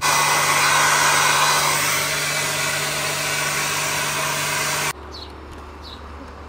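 Hand-held hair dryer blowing steadily, an even rushing of air over a low motor hum, cutting off suddenly about five seconds in.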